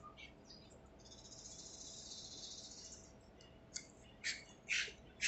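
Faint scratchy scraping of a metal UniqueFire UF-T20 flashlight's zoom head being slid and twisted by hand: one even hiss lasting about two seconds, then several short scrapes about half a second apart.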